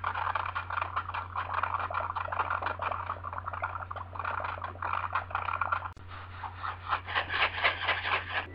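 Rapid, irregular scratching and scraping, with a brief break about six seconds in, over a steady low electrical hum.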